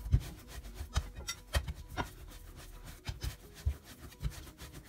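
Hands kneading soft, oiled yeast dough for burger buns in a plastic bowl: irregular soft thuds and rubbing as the dough is pressed, folded and knocked against the bowl, about two a second.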